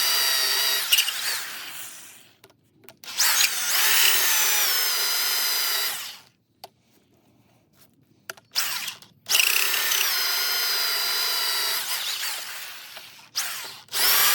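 1/2-inch DeWalt drill with a large Forstner bit, running at its slowest speed and boring a 1 3/4-inch hole deep into a log. It runs in three spells of a few seconds each, with a brief blip between the second and third, and winds down each time the trigger is released.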